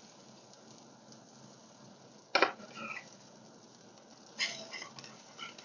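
Pancakes sizzling faintly on a hot griddle, with a sharp clack of a metal spatula or fork against the griddle about two seconds in and a quick cluster of lighter clinks a couple of seconds later, as the pancakes are turned.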